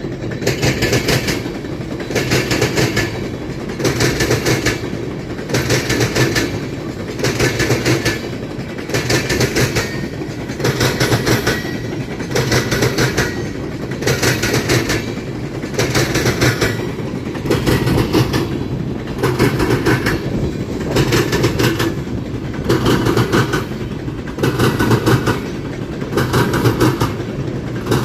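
Freight train passing at speed: wheels clatter over the rail joints in an even rhythm of loud beats about once a second, over a steady rumble.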